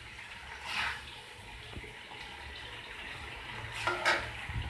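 A steel serving spoon scraping twice against a steel kadhai as cooked macaroni is scooped into a glass bowl, with a soft knock near the end, over a steady low background hum.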